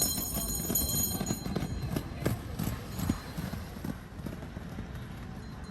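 Inline speed skates rolling and striding on pavement, wheels clattering in an uneven rhythm with a faint high wheel whine. Loudest in the first second or so, then fading.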